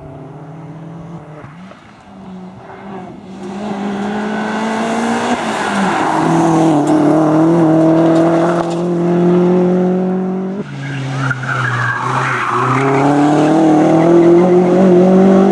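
Opel Astra OPC racing car's engine at full throttle, getting louder as it comes closer. It climbs in pitch through the gears, with sharp drops at the shifts about five and ten and a half seconds in.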